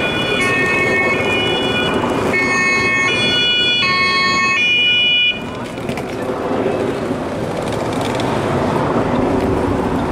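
A German two-tone emergency siren (Martinshorn) on a police van, alternating between a high and a low note about every two-thirds of a second. It breaks off abruptly about five seconds in, leaving street traffic and crowd noise.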